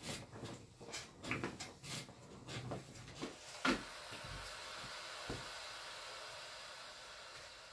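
Steam iron knocking and bumping as it is worked over a towel on an ironing board, then a loud clack as it is set down on its steam-generator base. A steady hiss follows and slowly fades.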